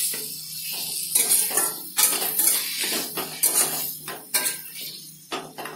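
Spatula scraping and knocking against a stainless-steel kadhai as a tomato and capsicum mixture is stirred and roasted. The strokes are irregular, about one every half second to a second.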